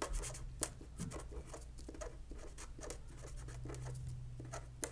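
Handwriting on paper: irregular short scratching strokes, with one sharper tick near the end, over a faint steady low hum.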